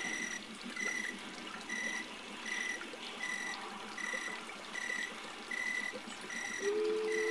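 A model locomotive's bell ringing in a steady rhythm, about ten strokes, over trickling water. Near the end a low whistle chord begins.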